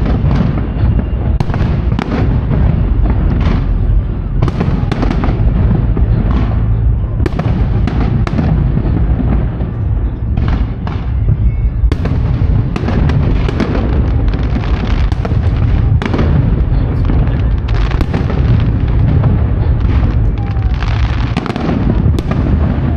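Aerial firework shells bursting in quick succession: a continuous run of sharp bangs and cracks over a steady low rumble.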